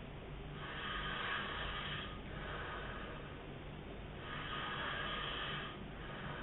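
A man snoring in his sleep: two long, noisy breaths about three and a half seconds apart.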